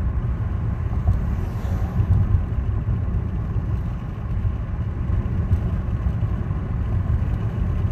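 Steady low rumble of a moving car, heard from inside the cabin: engine and road noise with no speech.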